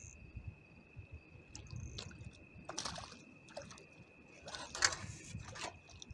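Scattered clicks and scrapes from a float rod and spinning reel as a fish is played on the line, over a low wash of sea against the rocks and a steady high insect trill. The sharpest clicks come about three and five seconds in.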